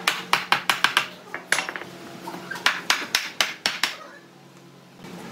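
A mallet knocking on a pine boat frame to drive a joint together: a quick run of sharp knocks, a short pause, then a second run of about seven knocks.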